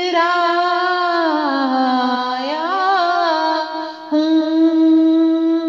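A woman singing a naat solo, drawing out one word of the verse ('itraaya') in a long melismatic phrase. The held note slides down and back up with ornaments, and a new steady note begins about four seconds in.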